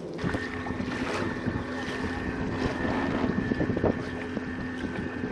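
Jarvis Walker electric trolling motor running on a kayak with a steady whine, wind buffeting the microphone, and water noise and small knocks around it.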